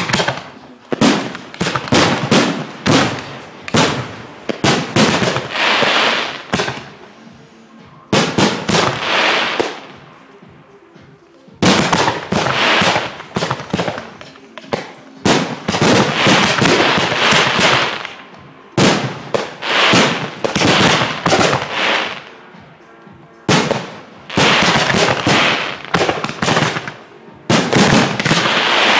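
Fireworks display: rapid barrages of sharp bangs and crackling shells, coming in dense clusters with a few short lulls between them.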